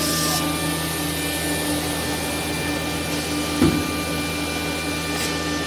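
Automatic-labeling nesting CNC router running its labeling cycle, a steady machine hum with several steady tones as the gantry travels across the table. A single short thump about three and a half seconds in.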